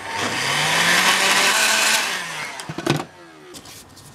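Hand-held heat gun switched on, its fan motor rising in pitch as it spins up under a rush of blowing air. After about two seconds it is switched off and winds down, falling in pitch, with a few light knocks near the end. It is heating a PVC plastic part to soften it for bending.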